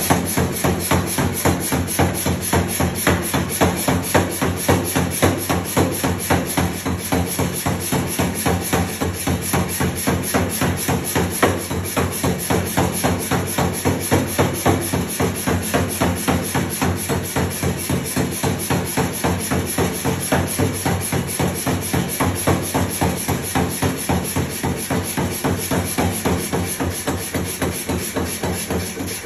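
Self-contained pneumatic power hammer (air hammer) forging hot steel: rapid, evenly spaced blows of the ram, several a second, over the steady hum of its electric motor and compressor.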